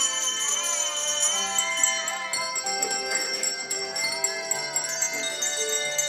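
A children's handbell choir ringing handbells, one note after another, each note ringing on and overlapping the next, over accompanying music.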